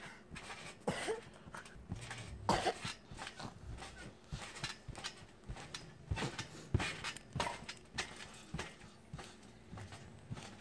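Child bouncing on a trampoline: a run of irregular soft thumps as feet land on the mat.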